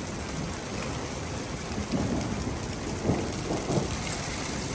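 Thunderstorm: steady rain and hail falling, with thunder rumbling about two seconds in and again between three and four seconds in.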